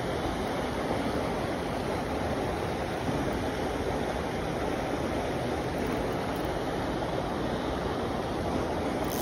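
Small mountain-creek waterfall pouring into a pool: steady rushing water.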